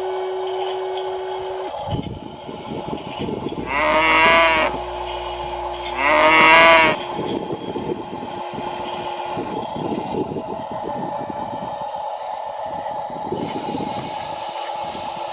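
Two loud horn blasts, each about a second long, over a steady high motor whine.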